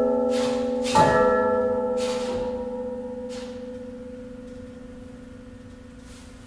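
A bell-like chord, struck again about a second in, then ringing on and slowly fading away.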